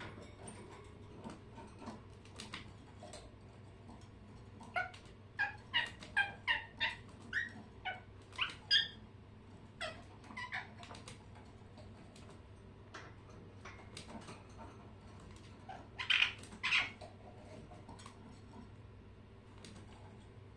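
Pet birds calling: a quick series of short chirps about five to nine seconds in, then a louder burst of calls around sixteen seconds, with faint scattered ticks between.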